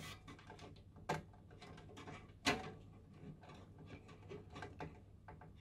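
Faint clicks and small taps of a screwdriver working the screws that hold a motherboard to the case's standoffs, with two slightly louder taps about a second and two and a half seconds in.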